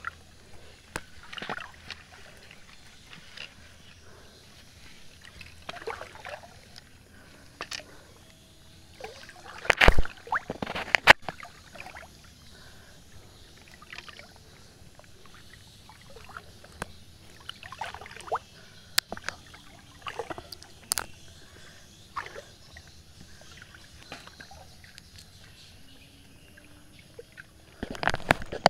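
Shallow river water splashing and sloshing in irregular bursts, with the loudest splashes about ten seconds in and again near the end.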